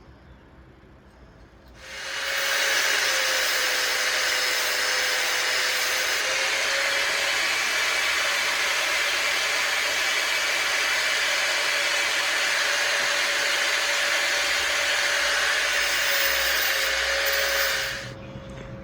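A power tool running steadily for about sixteen seconds, cutting the dog's ears out of sheet metal; it starts about two seconds in and stops shortly before the end.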